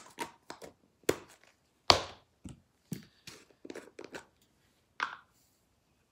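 Small plastic slime containers being handled and set down on a metal baking tray: a quick string of sharp clicks and knocks, the loudest about two seconds in.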